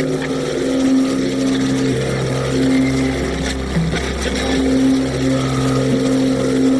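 Electronic dark-ambient noise music: low droning synth tones held for a second or two before shifting pitch, over a low rumble and a steady hiss.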